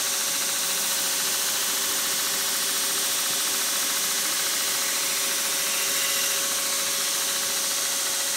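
Knifemaking belt grinder running steadily: an even high hiss from the abrasive belt over a steady hum, as a steel blade is hollow ground against the contact wheel.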